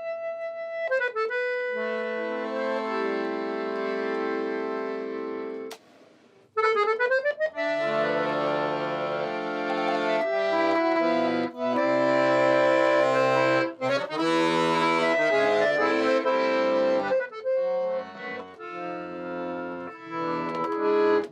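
Solo accordion playing in a minor key: held chords under a melody, a brief break about six seconds in, then a louder, busier passage.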